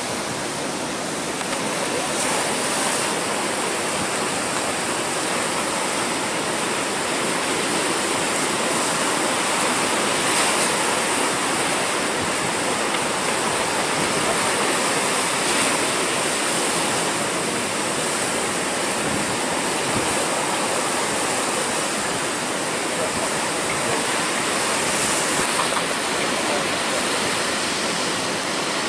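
Heavy storm surf and wind from Hurricane Dorian on the Atlantic shore: a steady rushing noise that swells slightly now and then and never lets up.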